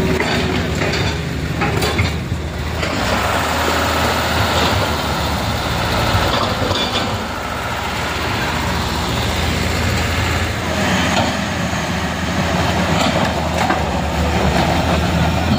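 Heavy vehicle's engine running steadily close by, with road noise over it.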